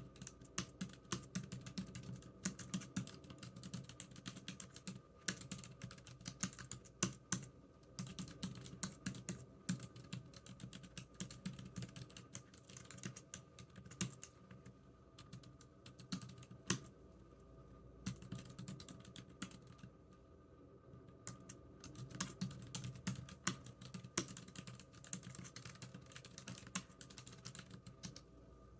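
Typing on a computer keyboard: runs of quick keystrokes broken by pauses of a second or two, over a faint steady hum.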